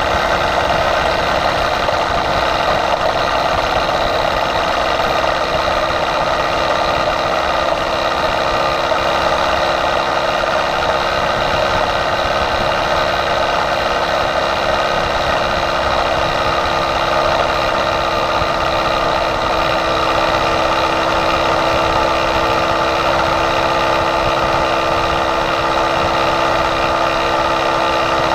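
Small motorized-bicycle engine running steadily under way, holding one even pitch with no change in speed.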